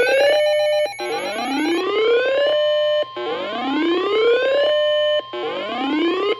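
Emergency alert tones: a whooping siren tone that rises over about a second, holds, then repeats about every two seconds, three times, over a steady high tone. It is the attention signal that comes before a flash flood warning.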